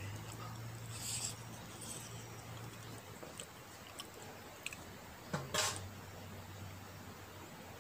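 Quiet eating sounds: scattered small clicks and soft chewing by hand from a brass plate, with a short sip from a cup about five and a half seconds in, over a low steady hum.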